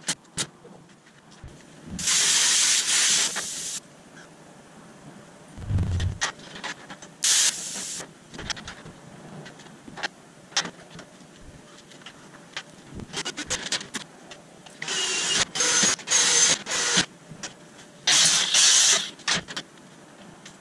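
Hissing in several short bursts, the longest about two seconds a couple of seconds in and a cluster near the end, with scattered clicks and knocks between and a dull thump about six seconds in.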